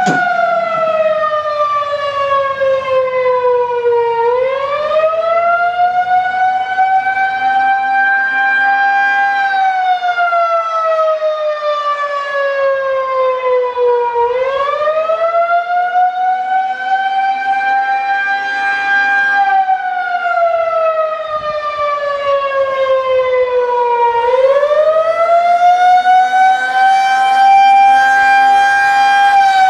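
Federal Signal 2001-130 electromechanical outdoor warning siren sounding the Attack signal: a loud wail that rises and falls in pitch, one cycle about every ten seconds. Its horn rotates on the pole.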